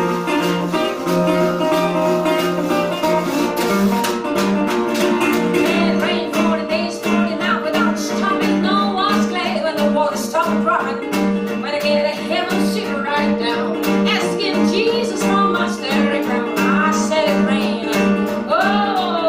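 Live acoustic blues: a guitar plays over a washboard scraped in rhythm. A woman's singing voice comes in about six seconds in.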